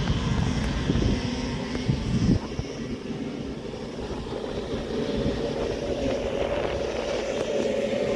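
A pack of small Balkan motocross motorcycles racing just after the start. Their engines make a mixed drone that grows steadily louder over the last few seconds as the bikes come closer.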